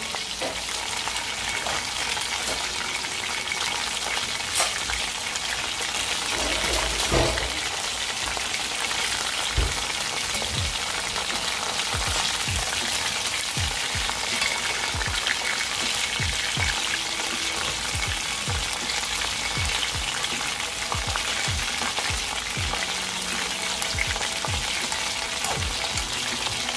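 Battered chicken breast pieces deep-frying in hot oil in a pot, a steady sizzle. From about ten seconds in there are soft low knocks about once a second.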